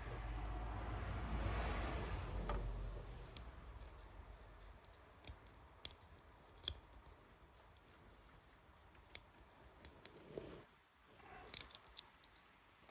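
Rustling as wiring is handled for the first few seconds, then a series of separate sharp clicks and snips from hand wiring tools cutting and crimping wire and connectors.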